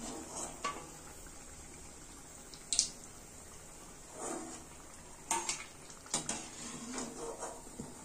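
A slotted metal spoon clinks and scrapes against a metal kadai while lifting fried bajjis out of the oil, with a few sharp clinks, the loudest about three seconds in. Under it the hot frying oil sizzles faintly.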